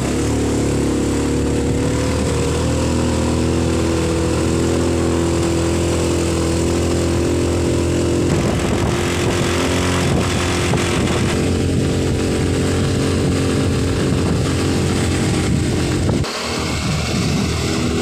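Small motorcycle engine running at a steady cruise, with a rush of wind and road noise over it. About sixteen seconds in, the sound drops suddenly, then comes back a little lower.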